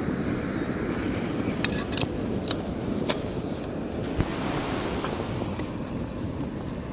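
Jetboil gas stove burner running under a pot of water being brought to the boil, a steady rushing noise, with a few light clicks about two to three seconds in.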